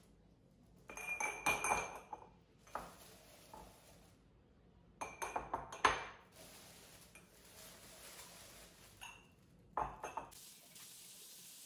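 Empty glass jars clinking against one another and being set down on a stainless-steel counter, in three quick clusters of clinks with a short glassy ring.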